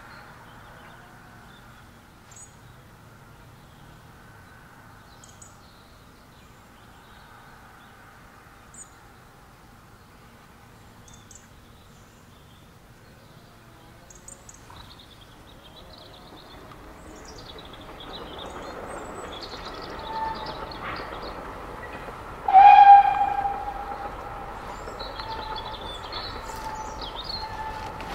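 Birds chirping faintly over a quiet background. Then a Vale of Rheidol narrow-gauge 2-6-2T steam tank locomotive approaches and grows louder over the second half, with a loud blast on its whistle lasting about a second, near the end.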